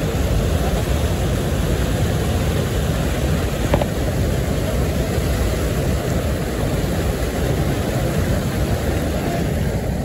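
River water rushing over a concrete check dam and churning into white water below: a loud, steady rush, deepest in the low end.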